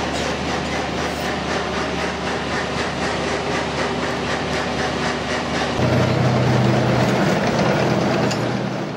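Tank's diesel engine running with its tracks clattering steadily. About six seconds in, the engine note shifts and grows louder.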